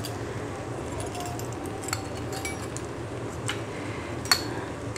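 Onions frying in a clay pot with a steady sizzle, and a few sharp clinks of a steel spoon against a glass spice jar of crushed chilli flakes, the loudest near the end.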